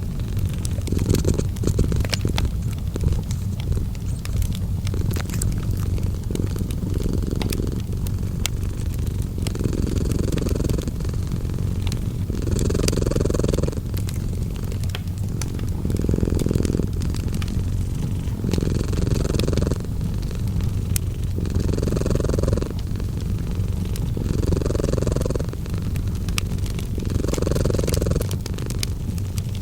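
A cat purring steadily and close up, the purr swelling in a slow rhythm about every three seconds with each breath. Fireplace crackling runs alongside as scattered sharp pops.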